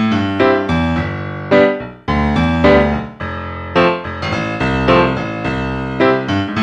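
Background music: a keyboard tune with notes struck one after another.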